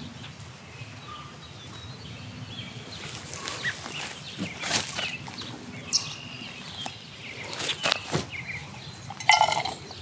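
Hands rustling and patting soil and wood-chip mulch while planting a seedling, with a few soft clicks from a small plastic pot. Scattered bird chirps sound over a steady low background hum, and a short animal call comes near the end.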